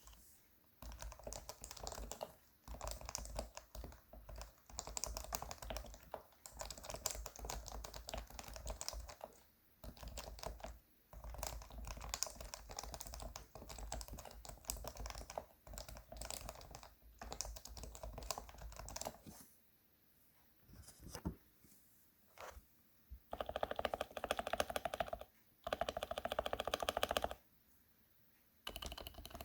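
Typing on a Leopold FC660C keyboard with lubed Topre switches: fast runs of keystrokes in bursts separated by short pauses, with louder, denser runs of keypresses about two-thirds of the way through.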